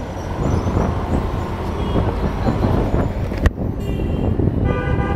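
Hero Hunk single-cylinder motorcycle riding in city traffic: a steady engine and road rumble. There is a sharp knock about three and a half seconds in, and a vehicle horn honks twice near the end.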